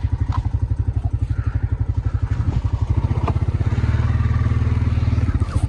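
Four-wheeler (ATV) engine running at low, steady revs with an even, fast putter.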